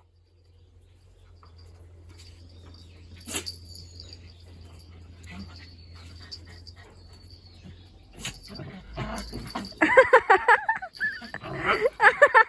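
Puppies barking in play, in loud clusters of short calls that start about ten seconds in, after a quieter stretch with a low hum and one click.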